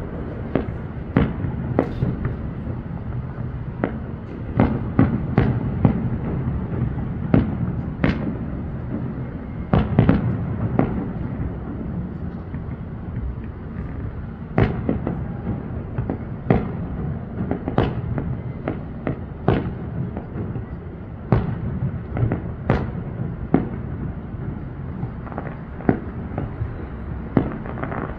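Fireworks display going off: dozens of sharp bangs at irregular intervals, some in quick clusters, over a continuous low rumble of bursts.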